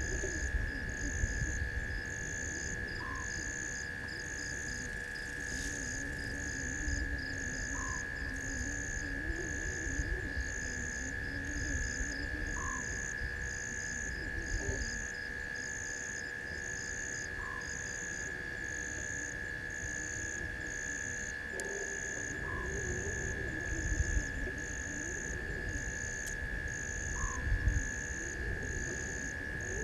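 Night chorus of frogs and insects: a steady high trill, a regular chirp higher up repeating just under once a second, and a short call that comes back about every five seconds, over a low rustling noise.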